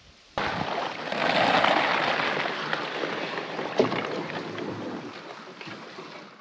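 Rushing water noise from a small boat moving along the river. It starts abruptly just after the start, then slowly fades, with no engine tone standing out.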